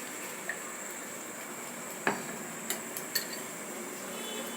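A spoon stirring kadha in a pan, clinking against the metal a few times (about half a second, two seconds and three seconds in, the one at two seconds the sharpest), over a steady faint hiss.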